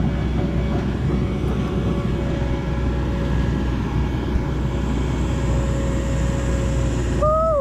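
John Deere 135G excavator's diesel engine running steadily with a low rumble and a faint steady whine. A short high-pitched voice-like call comes near the end.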